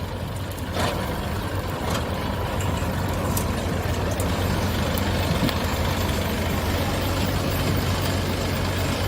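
Massey Ferguson 9500 tractor engine running at a steady speed with a continuous low hum, and a couple of light clicks about one and two seconds in.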